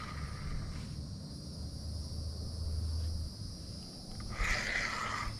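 Insects buzzing steadily at a high pitch over a low, steady rumble. About four seconds in, a louder rough, scratchy noise joins in.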